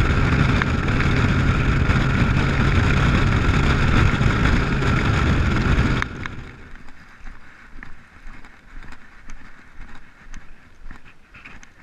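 Bass boat running at speed: steady outboard engine noise mixed with wind and water rush, cutting off suddenly about six seconds in. After that it is much quieter, with a scattering of light clicks and knocks.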